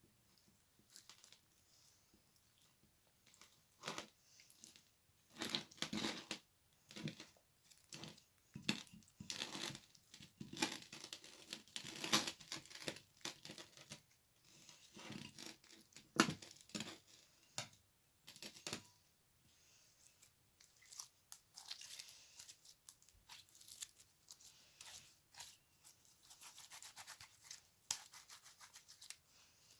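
Slime being stretched and squeezed by hand, crackling and popping in quick, irregular clusters.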